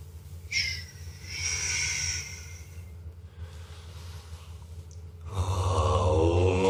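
A long hissing shush or breath out, then near the end a man's low, steady meditation chant begins and becomes the loudest sound.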